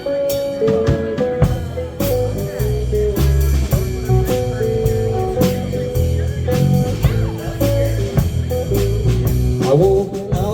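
A blues band playing an instrumental passage: guitar picking out held notes over bass guitar and a drum kit keeping a steady beat.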